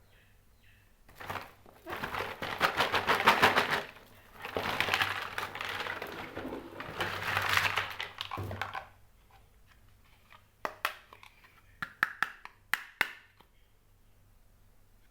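Plastic packaging crackling and crinkling as it is handled and opened, in three long stretches, followed near the end by a handful of sharp clicks and taps of small hard plastic pieces.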